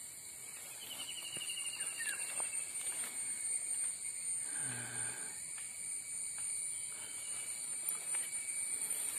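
Rustling of fern fronds and undergrowth as a hand brushes through the plants and the camera moves, with a few faint snaps. Over it runs a steady high-pitched drone, with a short falling trill about a second in and a brief low hum about five seconds in.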